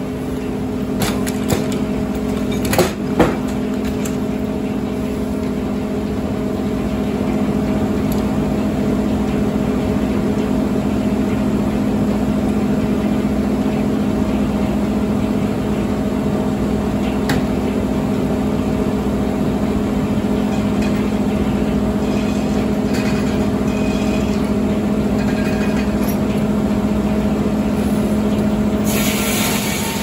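Sawmill machinery running at a steady pitch, with a few sharp knocks in the first few seconds. Near the end a louder, hissing noise rises over the hum.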